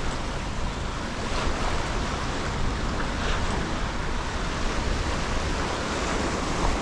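Steady rushing noise of surf washing against the jetty rocks, with wind on the microphone.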